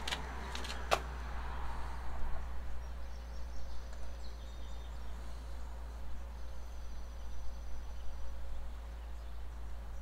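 A few sharp clicks of the camera being handled and repositioned in the first second, over a steady low rumble. Faint, thin high-pitched tones come and go later on.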